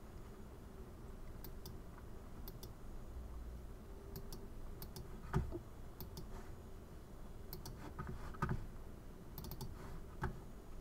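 Computer mouse clicking: sharp clicks, mostly in quick pairs, every second or two, with three duller, louder knocks in between.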